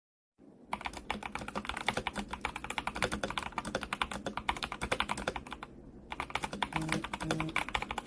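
Fast typing on a Tecware Phantom RGB mechanical keyboard: a rapid stream of key clicks that starts about half a second in, pauses briefly past the middle, then carries on.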